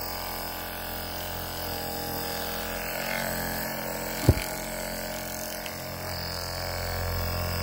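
Percussive massage gun with a ball head running steadily against bare skin, a quiet, even motor buzz. One short, sharp thump about four seconds in.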